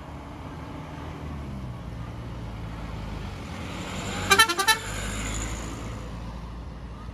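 A vehicle engine rumbling steadily, then about four seconds in a bus's multi-tone telolet horn plays a quick half-second run of notes.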